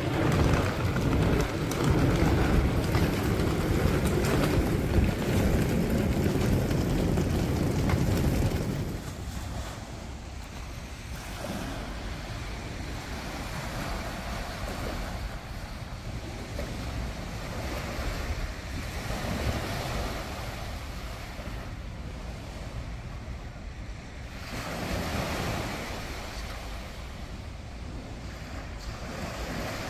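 Wind on the microphone with outdoor noise for the first nine seconds or so, then a quieter stretch of river water washing against an embankment wall, swelling and easing, with some wind.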